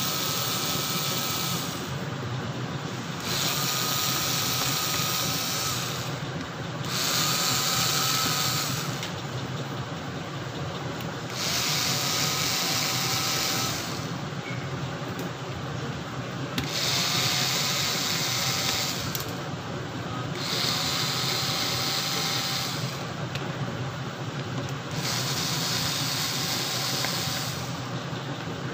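Cordless electric screwdriver backing out the screws of a laptop's bottom cover. It runs in repeated spurts of about two seconds, each with a light motor whine, with short pauses between screws.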